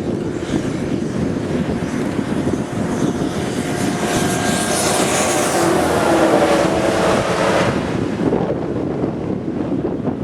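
Wind buffeting the microphone steadily, with a passing engine swelling and fading from about three to eight seconds in.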